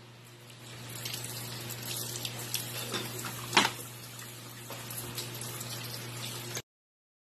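Tap water running into a sink of live crabs, with a sharp knock about three and a half seconds in and a few lighter clicks. It stops abruptly near the end.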